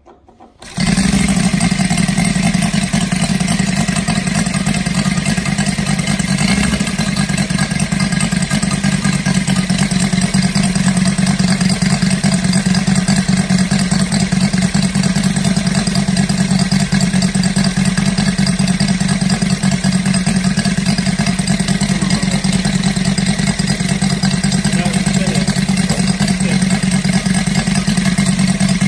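Saito FA-325 five-cylinder radial model aircraft engine, converted to run on petrol with spark ignition and exhausting through a collector ring, catching about a second in and then running steadily while turning a 22x8 wooden propeller.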